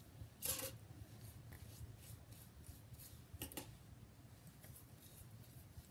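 Faint scratchy rustling of hands working through hair, with two short, louder scraping strokes, about half a second in and again about three and a half seconds in.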